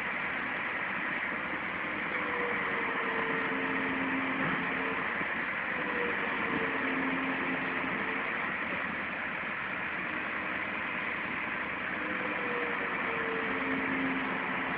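An engine running steadily under a strong hiss, its hum rising and falling in pitch a few times.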